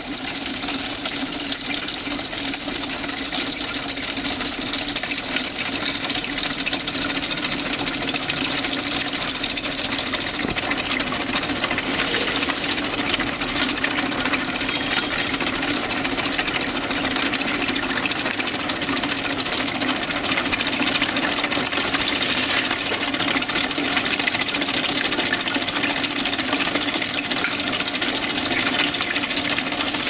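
Washing-machine motor spinning with a steady hum, over a continuous hiss of water spraying inside the plastic bottles. The sound holds even and unbroken throughout.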